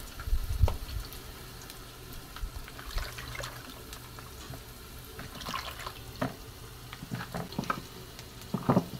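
Liver, kidney and vegetables frying in oil in a pan, a steady sizzle, with a few sharp knife knocks as tomatoes are cut, more of them in the second half.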